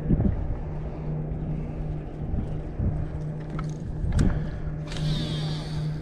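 Steady low motor hum that drops out briefly a few times, over wind rumbling on the microphone, with a few light clicks and a short hiss about five seconds in.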